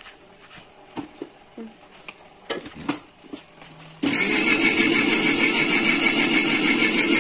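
A knife taps lightly on a plastic chopping board as tomatoes are diced. About four seconds in, a loud steady mechanical noise with a fast flutter starts abruptly and drowns out the chopping.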